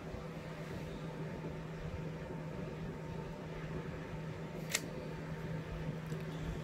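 Steady low room hum, with a single sharp click about three quarters of the way through.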